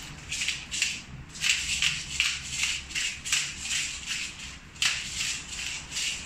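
Hand-twisted pepper mill grinding peppercorns, a rapid series of gritty rasps, about two to three twists a second, with a brief pause and a sharp click partway through.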